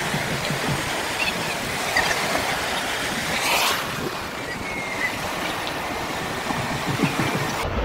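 Sea surf washing in over shallow sand, a steady rush of breaking waves, with one louder surge of water about three and a half seconds in.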